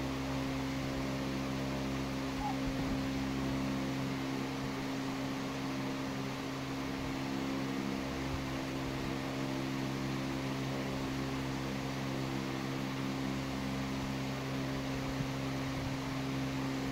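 Steady machine hum over an even hiss, with several low tones that hold constant throughout.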